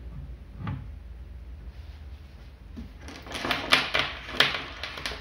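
Banana-plug patch leads clicking and clattering as they are plugged into the jacks of a relay-control trainer board and handled: a single click about half a second in, then a quick flurry of sharp clicks and rattles in the last two seconds.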